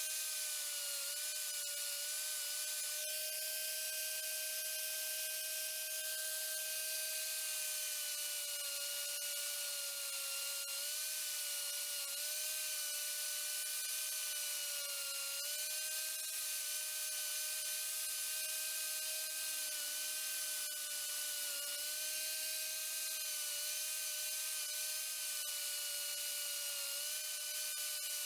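A small electric power tool, such as a rotary tool or grinder, running continuously with a steady whine that dips slightly in pitch now and then, as when it is pressed against the work.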